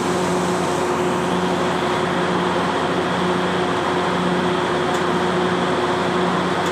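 Heavy machinery engine running steadily, with a low hum that comes and goes about every second.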